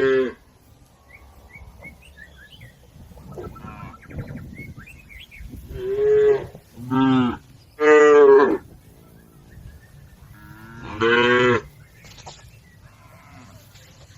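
Cattle mooing: a cluster of three short, loud calls about six to eight seconds in, and another call about eleven seconds in.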